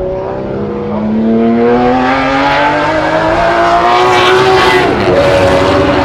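Race-prepared Jaguar XJ-S V12 engine under hard acceleration, its pitch climbing steadily as it grows louder, with a brief dip in pitch about five seconds in before it climbs again.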